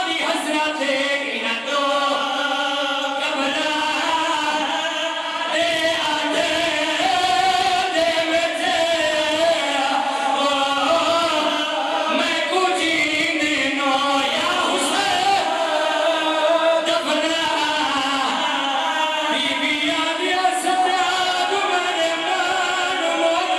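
A group of men chanting a noha, a Shia mourning lament, in unison into a microphone, one voice leading and the others joining.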